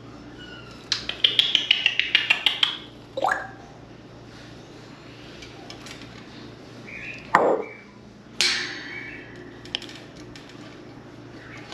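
African grey parrot making its own sounds without words: a quick run of about ten clicks, then short whistle-like sweeps, one rising and one falling, and a sharp high call near the end.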